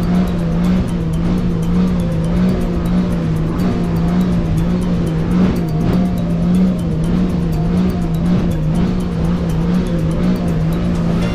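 Jet ski engine running steadily at speed, a loud drone that wavers slightly in pitch, over constant rushing noise.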